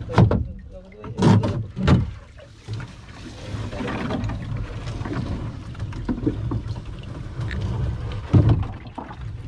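A few dull knocks and bumps in a small wooden-decked boat, three in the first two seconds and one more near the end, over a steady low rumble.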